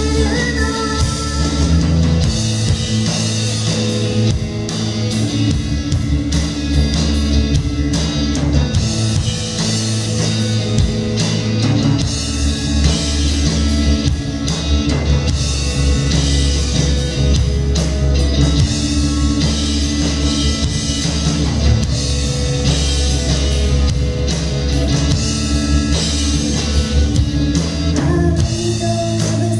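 Live rock band playing an instrumental passage without vocals: guitar over a drum kit, with steady low notes underneath and drum strikes throughout.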